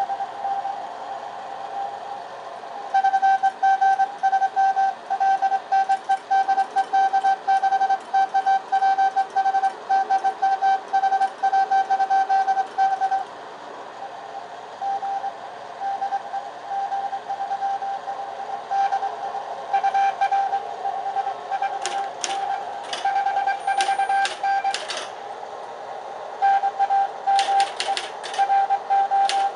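Morse code (CW) signal heard as a single steady beep of about 750 Hz, keyed on and off in dots and dashes: a UK amateur contact on the 20 m band. From about two-thirds of the way through, typewriter keys clack in short runs over the fainter Morse.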